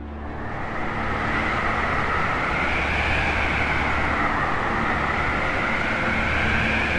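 Howling winter-wind sound effect: a steady rush of wind over a low rumble, its whistle slowly rising and falling in pitch. It swells in over the first second.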